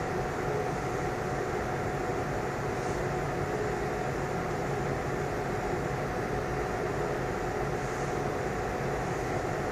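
Steady background hum and hiss with a constant held tone, unchanging throughout, with no taps or other distinct events standing out.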